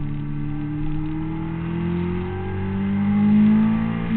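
Honda CBR600RR's inline-four engine accelerating hard in one gear, its pitch rising steadily and growing louder, heard from a camera mounted on the bike.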